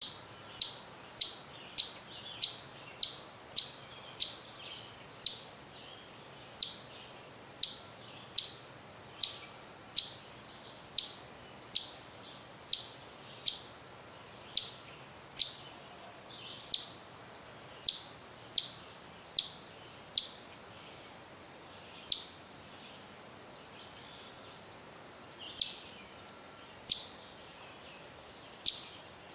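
Eastern chipmunk giving its sharp, high "chip" alarm call over and over, about one to two chips a second with a short lull near the end. It is agitated by a person close by.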